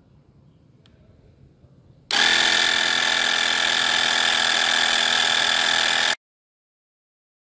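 Homemade electric air pump, driven by a 12V DC motor, running steadily with a buzzing whine while it pumps air into a motorcycle tyre; it starts about two seconds in and cuts off suddenly about four seconds later.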